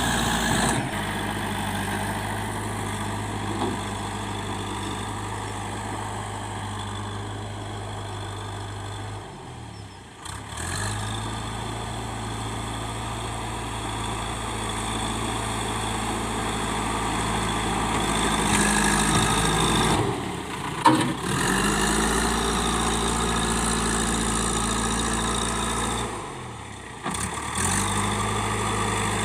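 Backhoe loader's diesel engine running steadily, cutting out abruptly and resuming three times.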